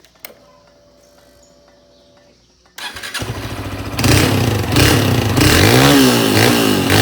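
Honda CG Titan motorcycle's single-cylinder four-stroke engine, fitted with a bare exhaust pipe, started about three seconds in after a faint steady hum, then revved up and down a few times, loud.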